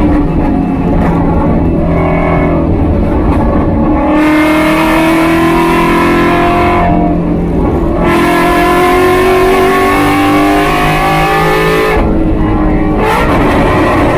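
Race car engine heard from inside the cockpit, held at high revs near 7,000 rpm and climbing in pitch under full throttle. The revs fall away about 7 seconds in and again about 12 seconds in as the driver lifts off for braking into corners, then pick up again, with wind and road noise underneath.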